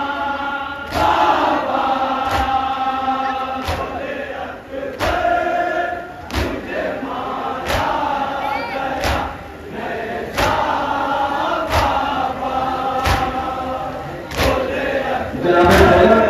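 A group of men chanting a noha in unison, with the crowd's chest-beating (matam) landing together as sharp slaps a little more than a second apart.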